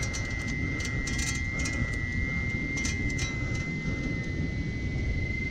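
Steady low outdoor rumble, like wind on the microphone, with a faint steady high whine throughout and scattered light clicks.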